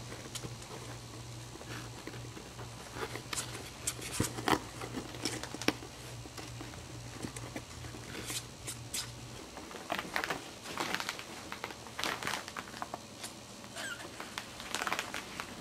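Small puppies scrambling about in a cardboard box lined with paper and towels: scattered rustling, crinkling and scratching. A low steady hum runs underneath and stops about nine and a half seconds in.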